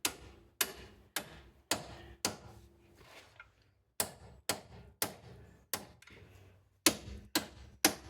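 Hammer tapping a strut-to-knuckle bolt through its holes, a dozen or so light metal strikes about two a second, each with a short ring, with a brief pause about three seconds in. The blows are held back so as not to damage the bolt threads.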